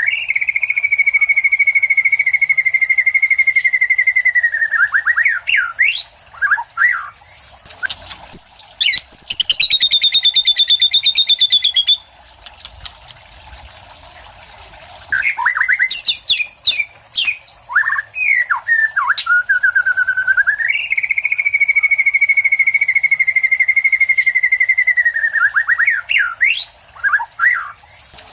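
White-rumped shama (murai batu) singing. A long steady whistle opens the song, quick slurred notes follow, and a fast buzzy trill comes before a pause of about three seconds. Quick notes and another long held whistle come after the pause. Its repertoire is said to include mimicry of lovebird, cililin, house sparrow and kapas tembak.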